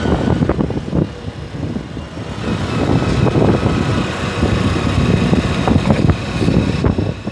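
Honda CBF150 motorcycle on the move, its single-cylinder engine running steadily at mid revs, with heavy wind noise on the microphone from riding.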